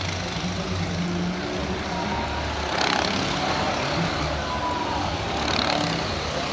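Steady outdoor car-show background: vehicle noise with a low rumble, and a brief sharp noise about three seconds in.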